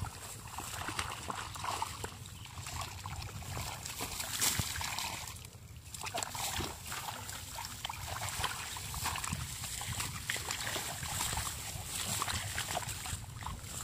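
Hands splashing and squelching in shallow, muddy paddy water among rice stubble while groping for fish, with a short lull about six seconds in.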